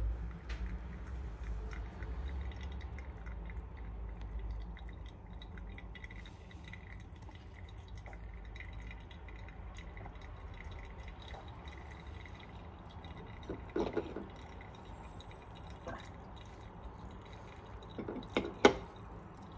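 Coffee dripping through a V60 paper filter, with a light knock about two-thirds of the way through and a sharper clink near the end.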